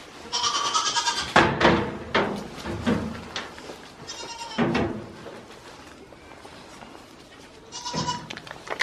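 Goat kids bleating: several loud bleats in the first five seconds, a short lull, then another bleat near the end.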